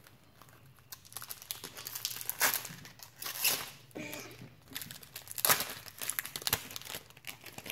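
A Pokémon card booster pack's wrapper being torn open and crinkled by hand, in irregular crinkling bursts.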